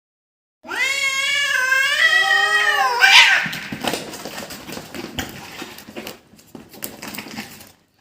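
Cats fighting: one long, wavering yowl, then a sudden harsh burst about three seconds in, followed by scuffling noise that dies away near the end.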